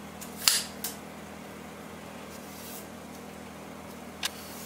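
A few short sharp clicks and taps, the loudest about half a second in with a brief ring, another just before a second in and one near the end. They come from a tape measure, a spirit level and a marker being handled against a clamped stainless steel tube, over a steady low hum.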